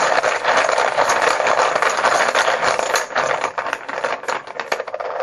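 Poker chips rattling and clattering as they are shaken and stirred in a container to draw one. A dense run of clicks thins out over the last couple of seconds, then stops suddenly.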